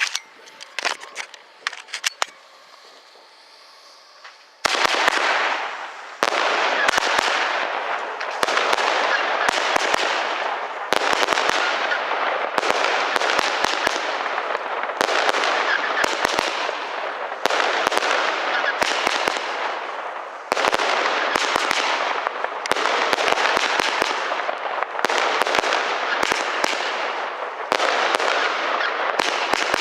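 Lesli 'Prezident Piro' 144-shot fireworks compound battery firing. After a few sharp clicks and a short quiet gap, shots start about four and a half seconds in and follow one after another. Each has a sudden start and a noisy tail of a second or two.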